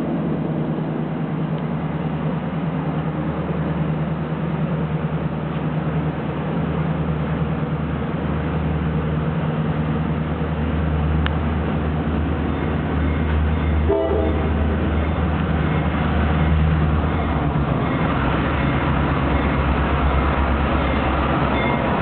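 Two GP38-2 diesel-electric locomotives, each with a 16-cylinder EMD 645 two-stroke diesel, approaching and passing close with a freight train. Their engines make a steady low drone that grows gradually louder, with more high-pitched noise in the last few seconds as the lead unit comes alongside.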